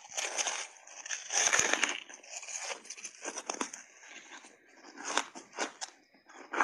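Biting and chewing big mouthfuls of crunchy refrozen shaved ice dusted with matcha powder: a long dense crunch in the first two seconds, then shorter crisp crunches.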